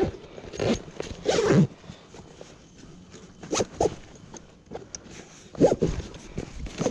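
A zipper being pulled in several short rasping strokes, the longest about a second in.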